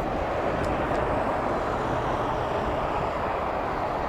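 Steady jet engine noise from an airliner on or near the runway, an even rush without distinct tones.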